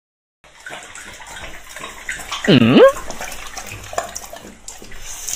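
Water running steadily from a tap into a tub or basin. About two and a half seconds in, a loud cry drops in pitch and rises again.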